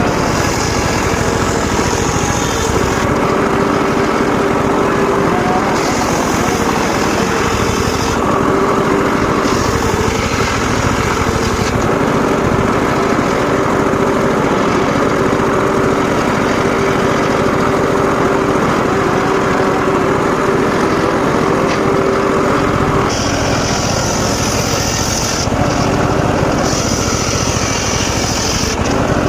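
Engine-driven mobile circular saw running steadily while sawing mahogany, the sound of the cut shifting every few seconds.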